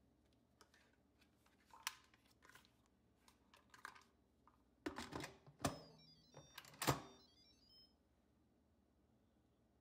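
Instant Pot lid being handled with light clicks, then set on the cooker and twisted shut with several metal-and-plastic clunks. A short electronic tune of quick beeps plays as it closes.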